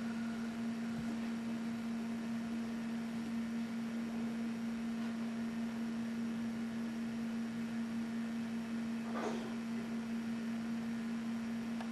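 Steady electrical hum at one unchanging low pitch, with a faint brief rustle about nine seconds in.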